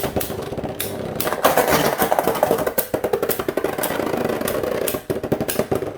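Two Beyblade spinning tops, one of them 3D-printed, whirring and clashing in a plastic stadium: a dense run of rapid clacks and rattling hits, with a few sharper impacts standing out.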